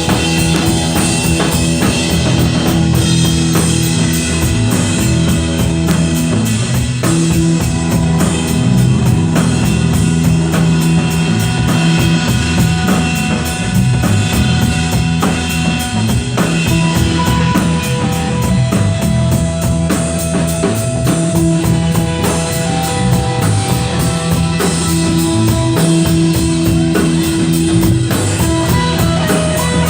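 Live rock band playing loud, with a drum kit pounding and electric guitars holding notes.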